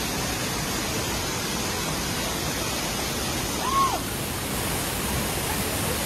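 Steady rush of a river and its waterfall, with a brief high call rising and falling about four seconds in.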